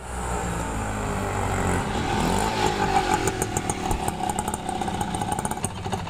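A small vehicle engine running in a busy street, its pitch rising and falling for a moment about two to three seconds in, with some clatter; the sound drops away suddenly at the end.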